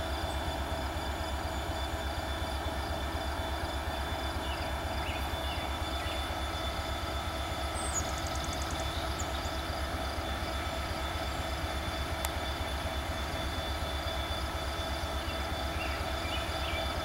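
CSX diesel freight locomotive approaching under power: a steady pulsing low engine rumble with a constant whine above it.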